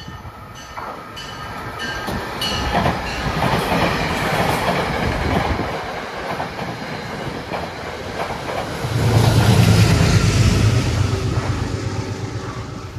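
Metro-North push-pull train of Shoreliner coaches passing through the station: wheels rumbling and clacking over the rails, building up over the first few seconds. A low, steady hum joins and is loudest in the last few seconds.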